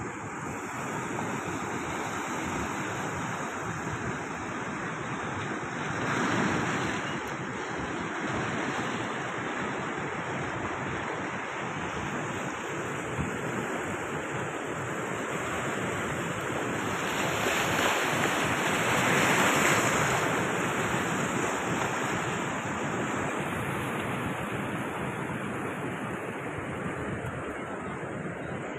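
Atlantic surf breaking and washing over shoreline rocks, a steady rushing wash that swells about six seconds in and again more broadly around eighteen to twenty seconds in.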